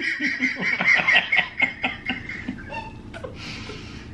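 A man laughing hard, a high-pitched laugh in quick bursts that fades out over the last second or so.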